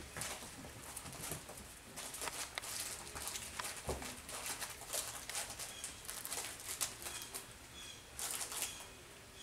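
Cavapoo puppies' claws clicking and scrabbling on a tile floor while they tussle over plush toys, a busy run of small ticks and scratches. Faint short high chirps come now and then.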